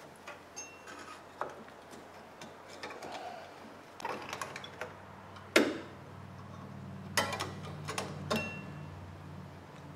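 Metal clicks and clinks of a rear drum brake shoe hold-down spring, cup and pin being pressed and twisted into place with pliers. The clicks are scattered, a few with a brief metallic ring, the sharpest about halfway through and a cluster near the end, over a faint low hum from about four seconds in.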